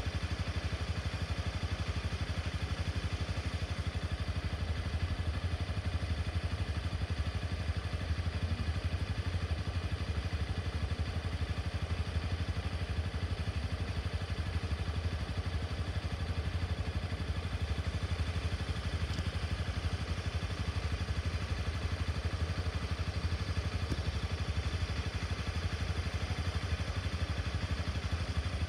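A steady low rumble of a road vehicle's engine idling, unchanging throughout.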